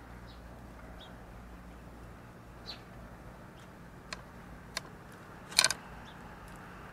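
Grey squirrel feeding from a seed tray right by the camera: a couple of sharp clicks and then a loud, brief crackle of rapid clicks about five and a half seconds in, as it bites into corn and seed. Faint bird chirps now and then behind it.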